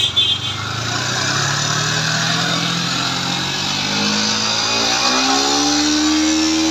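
Yamaha MT motorcycle engine running, revved slowly up over a few seconds and then held at a steady higher speed. It is the test run after repair of an abnormal engine noise, with the bike now reported fixed.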